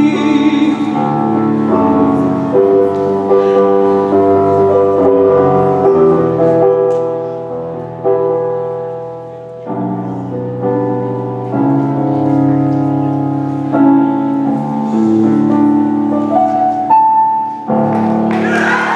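Slow music of sustained chords, with keyboard-like tones that change every second or two and no beat.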